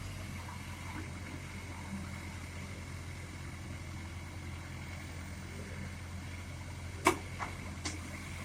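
Steady low hum of an excavator's diesel engine running. Near the end there are three short sharp knocks, the first the loudest.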